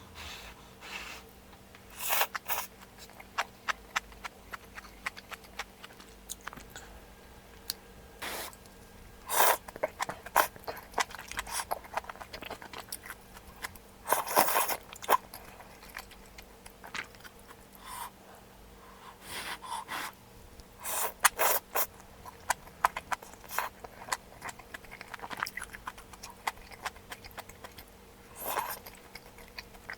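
Close-miked eating sounds over a bowl of malatang: scattered sharp clicks and scrapes of utensils with chewing, broken by several short noisy bursts of half a second or so. A faint steady hum sits underneath.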